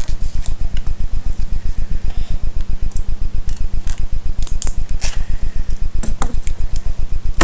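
A loud, even low hum pulsing about ten times a second, the noise of a laptop's built-in microphone, with light clicks and rustles of paper and plastic Lego parts being handled.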